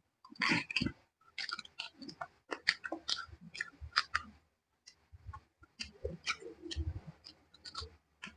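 Close-up chewing and lip smacking of a person eating braised pork hock (paksiw na pata), with many irregular wet clicks and smacks.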